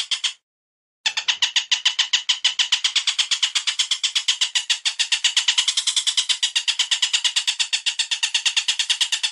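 Looped bird-call recording: a rapid, even series of sharp chattering notes, about nine a second. It breaks off for half a second just after the start, then carries on.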